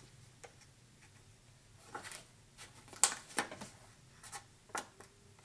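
Scored designer series paper being folded and creased by hand: faint paper rustles with a few short taps and scrapes, from about two seconds in to near the end.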